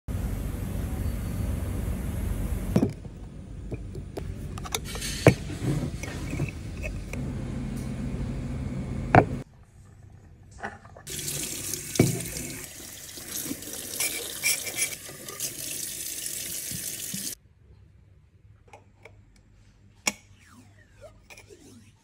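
Tap water running into a stainless steel sink while a metal tube is rinsed under it, for about six seconds in the middle. Before it come several sharp knocks, as of metal parts being handled.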